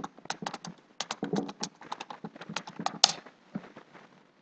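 Typing on a computer keyboard: quick runs of keystroke clicks, with one louder keystroke about three seconds in, after which the clicking thins out and stops.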